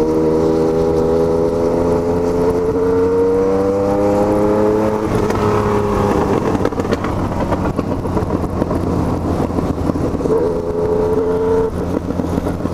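Yamaha MT-09's three-cylinder engine pulling under load, its pitch climbing slowly for about five seconds. The steady engine note then gives way to rushing noise with a fainter engine underneath, and returns steady about ten seconds in before breaking off again near the end.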